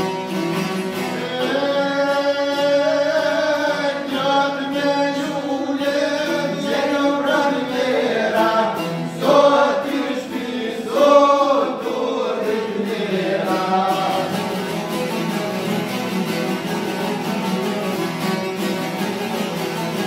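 Albanian folk rhapsodes singing, with long-necked plucked lutes accompanying. The singing runs from about a second in to about fourteen seconds in, with its loudest lines near ten and eleven seconds. After that the strummed lutes play on alone.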